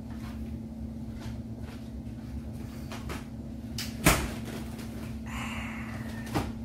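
Clicks and clacks of a metal-framed folding beach chair being set up and sat in, the loudest clack about four seconds in, with a brief rustling creak shortly after. A steady low hum runs underneath.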